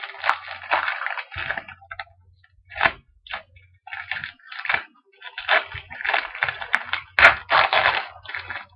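Foil wrapper of a Panini Origins trading-card pack crinkling and tearing as it is ripped open by hand, in a run of short, irregular crackly bursts.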